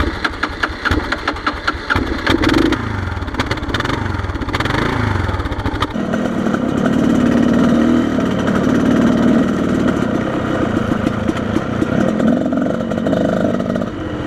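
Flooded motorcycle engine being cranked with the throttle held wide open, stumbling at first and then catching about six seconds in and running steadily.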